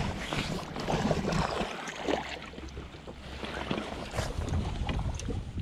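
Wind buffeting the microphone over water slapping a small open boat's hull, with scattered light clicks and knocks; the wind rumble eases for a moment in the middle.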